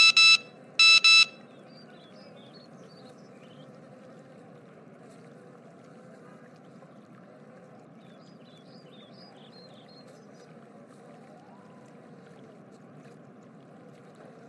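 Two short bright tones about a second apart, then a steady, soft hiss of outdoor ambience with a few faint high chirps scattered through it.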